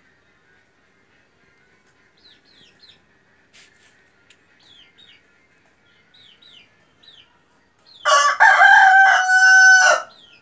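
Desi rooster crowing once near the end, a loud call of about two seconds with held notes. Before it, faint short high peeps that fall in pitch.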